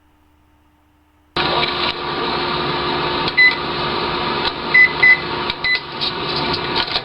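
After a moment of near silence a steady hum starts suddenly, broken by four short high beeps from a microwave oven's keypad as its buttons are pressed. The owner says this microwave isn't working.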